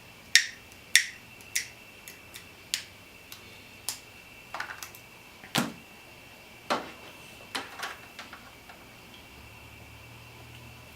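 A run of sharp, irregular clicks and snaps from hand tools working on wiring, about a dozen or more over the first nine seconds and stopping near the end.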